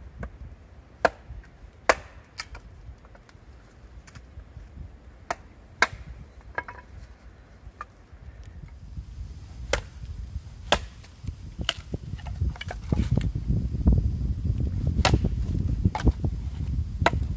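Wood being chopped or struck: a series of sharp knocks, roughly one a second with a few longer gaps. A low rumble builds over the second half.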